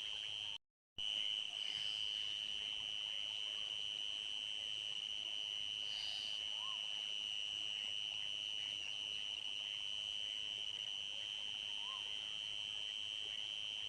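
Crickets trilling in a steady, continuous high-pitched chorus. The sound cuts out for a moment just under a second in. Faint short chirps come a couple of times in the middle and near the end.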